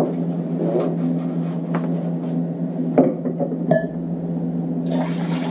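A few light knocks and clinks of a glass measuring cup and kitchen items on a countertop, the sharpest about three seconds in, over a steady low hum; a hiss starts near the end.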